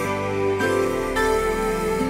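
Soft background music: slow, sustained chords that change about half a second in and again just after a second in.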